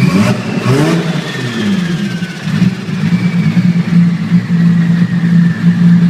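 Turbocharged car engine idling, revved once in the first second and dropping back to idle, with a faint high whistle sliding slowly down in pitch.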